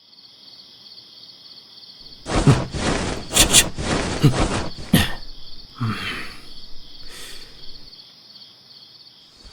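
Crickets chirping steadily in a night-ambience sound effect. From about two seconds in, a run of louder rustles and knocks plays over it for several seconds.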